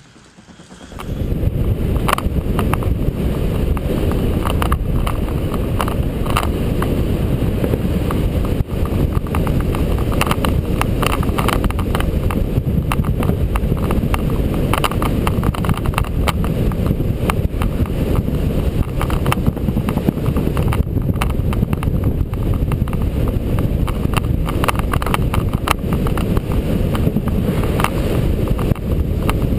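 Wind buffeting the microphone of an onboard camera on a bicycle riding fast around a velodrome, with frequent clicks and rattles. It begins suddenly about a second in and holds steady.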